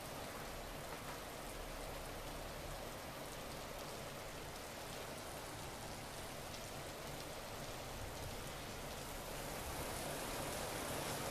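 Steady thunderstorm rain falling, growing a little louder near the end.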